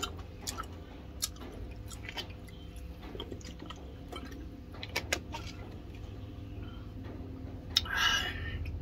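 Close-up eating sounds: chewing with scattered sharp mouth clicks and smacks, and a brief louder noisy burst near the end.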